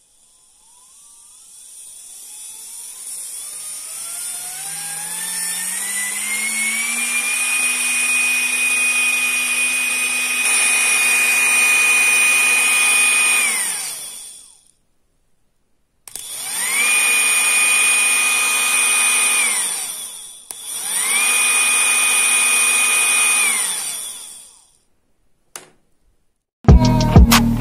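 Large brushed DC motor spinning up as its supply voltage is turned up, its whine rising in pitch for several seconds, then running steadily and coasting down. It is then run twice more for about three seconds each, coming up to speed quickly and winding down. Music starts near the end.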